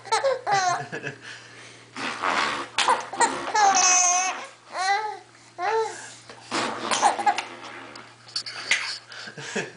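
Baby laughing in repeated short bursts of giggles, with a long high-pitched squeal about four seconds in.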